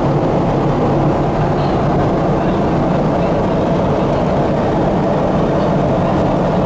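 Steady cabin drone of a Boeing 777 in flight: engine and airflow noise heard from inside the passenger cabin, even and unbroken, with a low hum under it.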